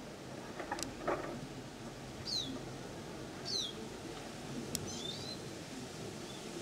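A bird gives two high chirps that slide downward, about a second apart, then a short twittering call, over steady background noise. A couple of sharp knocks about a second in are the loudest sounds.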